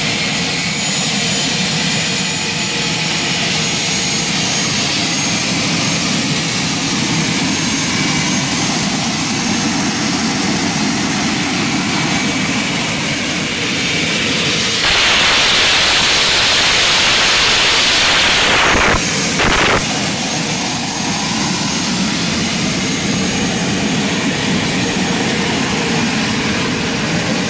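Y2K turbine superbike's Rolls-Royce helicopter gas-turbine engine running, with a jet-like rush and a steady high whine. A little past the middle a louder, hissier rush builds for about four seconds and cuts off suddenly.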